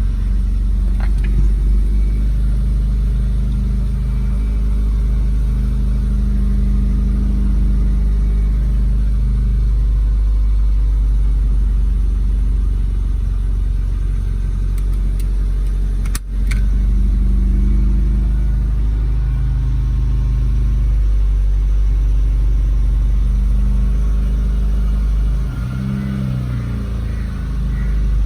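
Toyota Corolla Altis on the move: a steady low rumble of road and engine noise, with one sharp click about halfway through.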